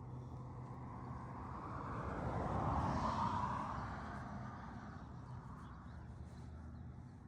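A passing vehicle, its noise swelling to a peak about three seconds in and then fading away.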